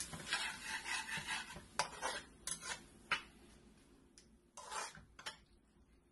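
A spoon stirring a wet tomato masala sauce in a metal pan, freshly thinned with a little water. It scrapes through the sauce at first, then clinks and knocks against the pan several times, with one longer scrape near the end.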